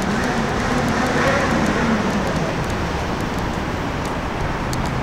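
Steady city traffic noise: a continuous hum of road vehicles, with a low engine drone wavering through the first couple of seconds.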